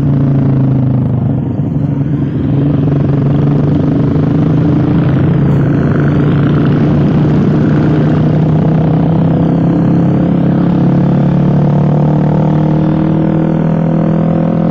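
Suzuki GSX-R150's single-cylinder engine running at a steady cruise through an aftermarket racing exhaust, its pitch holding nearly level.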